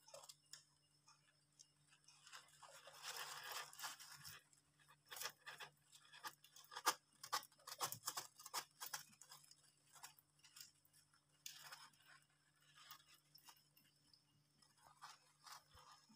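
Dwarf hamsters rustling and scratching in wood-shaving bedding, with irregular small crunches and sharp clicks. A longer spell of rustling comes early, then a run of clicks around the middle, over a faint steady hum.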